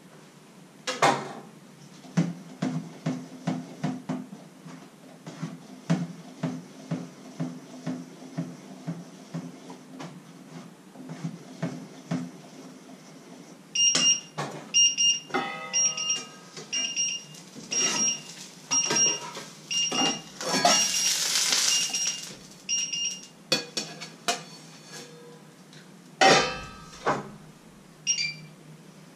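Rhythmic knocking and clattering of kitchen utensils, then from about halfway a smoke alarm beeping over and over at a high pitch, with a louder knock near the end.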